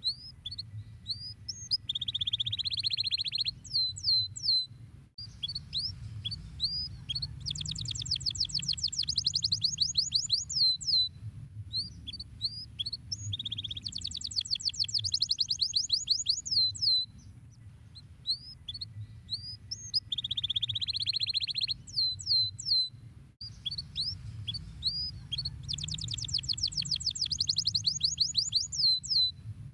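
Domestic canary singing: fast trills and rising and falling whistled chirps in varied phrases, the same song sequence coming round again about every eighteen seconds. A low hum runs beneath.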